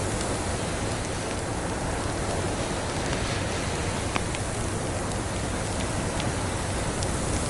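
Steady snowstorm wind hiss layered with a wood fire crackling: a few sparse sharp pops over the even noise, the clearest about four seconds in.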